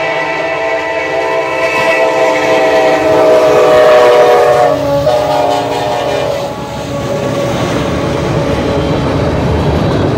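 Freight locomotive air horn sounding a long chord of several notes at a grade crossing, loudest around four seconds in, dropping in pitch as the lead locomotive passes and stopping a couple of seconds later. After it the diesel engine of the trailing EMD locomotive and the freight cars' wheels rumble and clatter over the rail joints.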